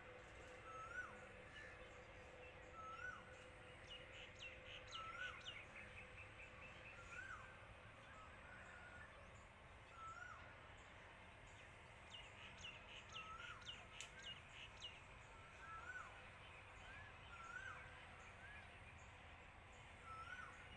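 Faint birdsong outdoors: one bird repeats a short rising-and-falling call every second or two. Twice a rapid chattering trill joins it, over a steady hum and background hiss.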